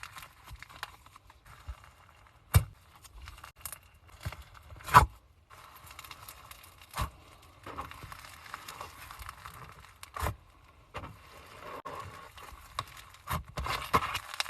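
Slime being squeezed and poked by hand: irregular wet crackling and small clicks, with a few sharp pops, the loudest about two and a half and five seconds in.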